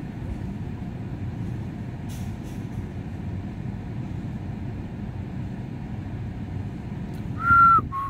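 Steady low rumble of vehicle noise in a parking lot, heard from inside a car. Near the end comes a short whistle-like tone, the loudest sound, followed by a shorter, lower one.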